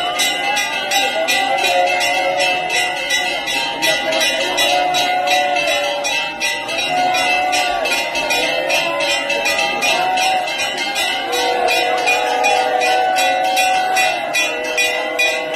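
Temple bells ringing rapidly and without pause, several strokes a second, over held, wavering tones.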